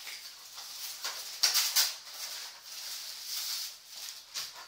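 Packaging being handled and opened: a cardboard figure box and a t-shirt's wrapping rustle and crinkle in several short bursts, the loudest about a second and a half in.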